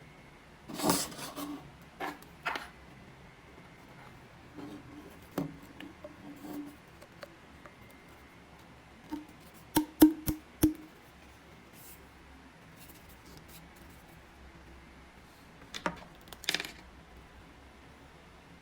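Scattered handling noises: brief rubbing and rustling, a few taps, and a quick run of four sharp clicks about ten seconds in. No drill is running.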